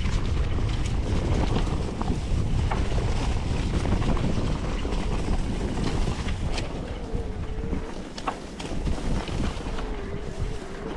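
Wind buffeting the microphone over the low rumble of an electric-assist mountain bike riding a trail, with scattered clicks and rattles. A faint, wavering whine comes in about seven seconds in.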